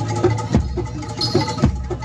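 Live Javanese percussion-ensemble music: sharp hand-drum strokes about every half second over ringing pitched metal notes.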